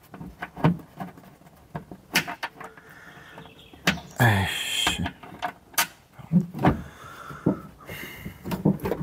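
Hands working the lock cables and clips inside a Nissan Versa door: a string of sharp clicks and knocks of plastic and metal parts, with a longer scraping sound about four seconds in.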